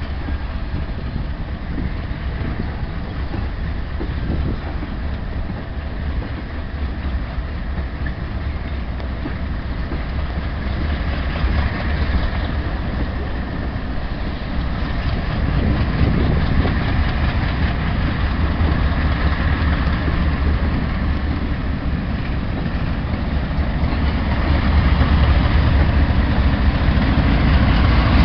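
Three Alco diesel locomotives rumbling as they haul a freight train closer, the low engine drone growing steadily louder as the train draws near.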